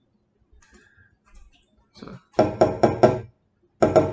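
An egg being tapped against a hard edge to crack its shell: four quick ringing knocks, then one more near the end.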